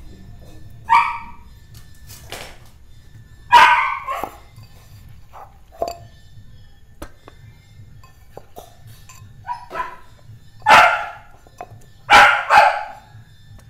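A dog barking in short, separate barks, a few seconds apart at first, then three or four louder barks in quick succession near the end.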